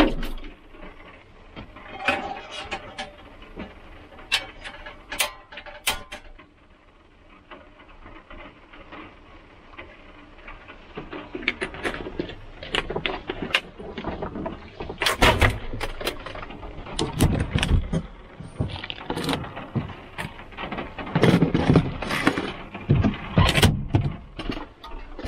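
Irregular clicks, knocks and clatter of small objects being handled, sparse at first and busier and louder in the second half.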